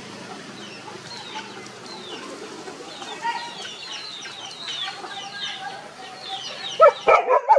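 Chickens calling: high, falling chirps repeated over and over, then a quick run of loud clucks near the end.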